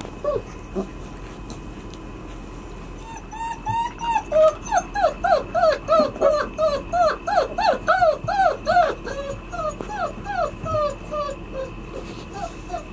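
White Swiss Shepherd puppies whining and yipping: a quick run of short, high cries that each drop in pitch, at about two or three a second. The cries are thickest from about three seconds in until about eleven seconds, with a few scattered ones before and after.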